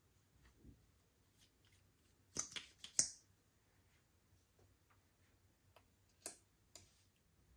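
Slime being worked by hand, giving scattered sharp clicks and pops: a cluster of three about two and a half to three seconds in, and two more just after six seconds.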